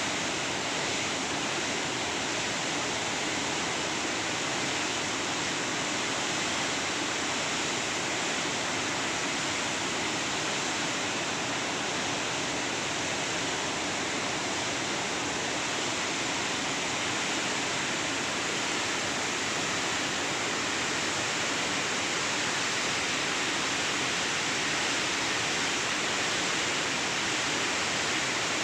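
Floodwater rushing through the open spillway gates of a dam, a steady, unbroken roar of falling water.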